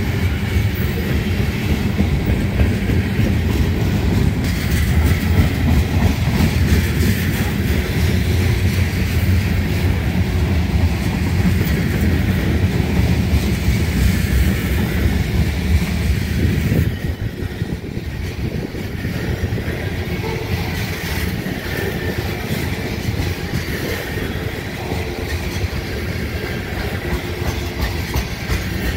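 Freight train rolling past, its wheels clicking over the rail joints above a steady rumble. About 17 seconds in it becomes quieter and the deep rumble thins out.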